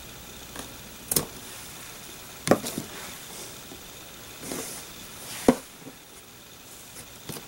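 A few sharp clicks and knocks with soft rustling: scissors snipping pom-pom ribbon trim and hands handling the trim inside a hard-shelled train case.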